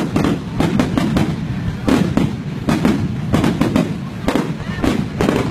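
Aerial fireworks display: a dense, irregular run of shell bursts and crackling bangs, several a second.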